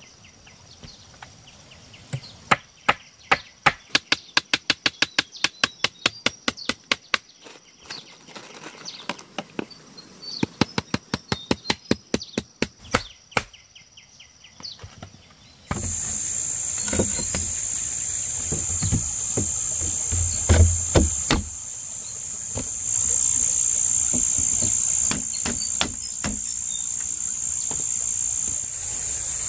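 Runs of rapid sharp knocks, about four a second, with short pauses between the runs. After about sixteen seconds a loud steady high-pitched insect buzz comes in, with a few dull thumps beneath it.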